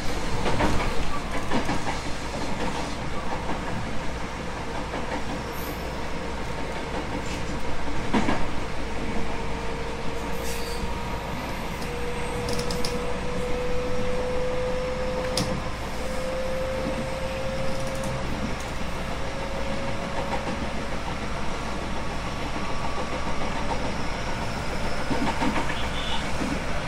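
JR West 221 series electric train running: a steady rumble of wheels on rail, with a few sharp clicks. Through the middle a thin whine climbs slowly in pitch as the train gathers speed.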